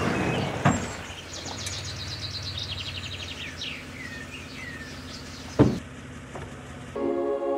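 Birds chirping in rapid trilled runs and short falling whistles over a steady low background hum, with two sharp knocks; music begins near the end.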